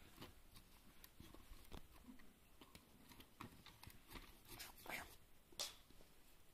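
Faint, scattered clicks and light knocks of a Fast Lane plastic toy garbage truck being handled and worked by hand, the sharpest click about five and a half seconds in.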